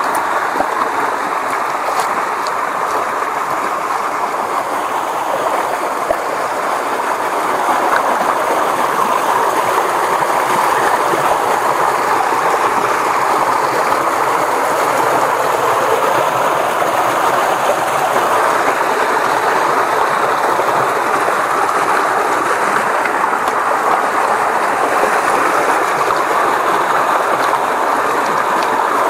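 Fast-flowing muddy creek rushing over small rapids: a steady rush of water, a little louder from about eight seconds in.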